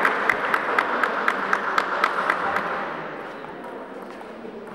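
Spectators applauding, with sharp claps standing out at about four a second. The applause dies away about two and a half seconds in, leaving quieter hall background.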